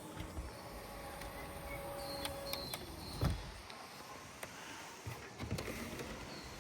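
A small electric motor in a car whirring steadily for about two and a half seconds and stopping, followed by a few sharp clicks and knocks.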